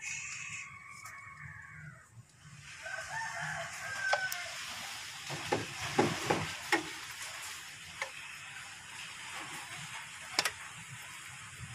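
A rooster crowing in the background over the first few seconds, then a series of sharp clicks and knocks as hands work the old timing belt off the sprockets of a Toyota 2C engine.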